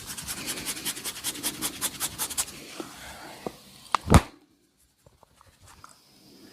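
A barber's hands slapping and tapping rapidly in a massage, about eight quick slaps a second for a couple of seconds, then a single loud smack about four seconds in.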